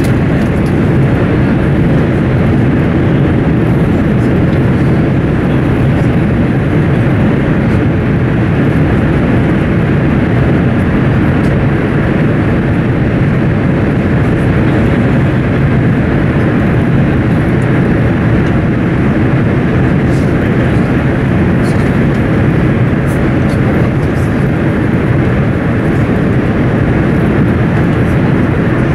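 Steady, loud running noise of a Class 395 'Javelin' high-speed electric train at speed, heard inside the passenger coach while it runs through a tunnel.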